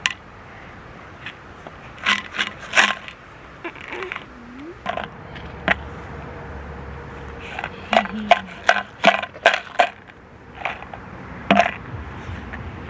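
Small stones clacking against one another as they are set down and handled: a string of sharp, irregular clicks, bunched in two clusters.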